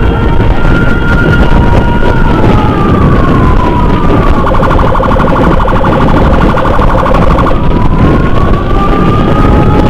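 Escort motorcycle's electronic siren sounding two pitches at once. About two seconds in it slides down into a rapid pulsing tone, which runs for about three seconds before the siren slides back up near the end. Underneath is heavy wind and road rush from riding.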